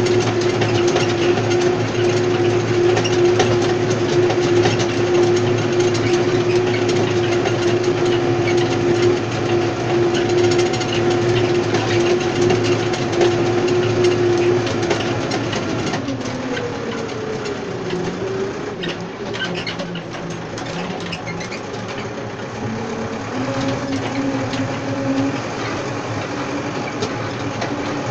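Tractor engine running steadily under load, pulling a Kromexim tine stubble cultivator through dry soil, with the clatter of the tines and steel frame. About halfway through the engine note falls and the sound gets quieter as the tractor slows, then the note rises again near the end.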